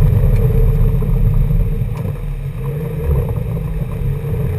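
Car driving along a dirt forest road, heard from inside the cabin: engine and tyre-on-dirt rumble, easing off a little about two seconds in.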